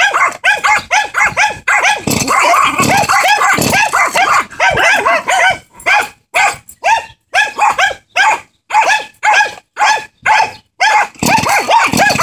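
A dog barking over and over in quick, high-pitched yaps, with short pauses between barks through the middle stretch.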